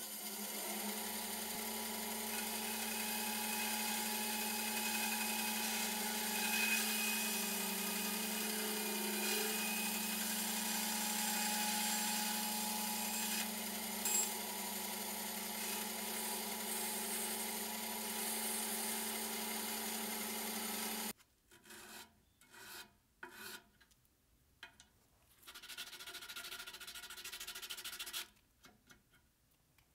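Small benchtop band saw running steadily with its motor hum as a small piece of wood is fed through the blade; the saw noise cuts off abruptly about two-thirds of the way in. Short rubbing and scraping strokes follow as the cut wooden piece is worked by hand.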